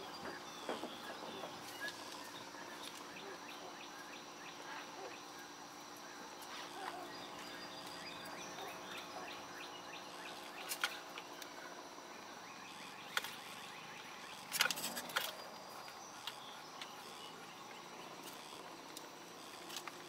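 Faint handling noise of leather laces being braided by hand: soft rustling and light ticks, with a short cluster of louder taps about three-quarters of the way through, over a faint steady hum.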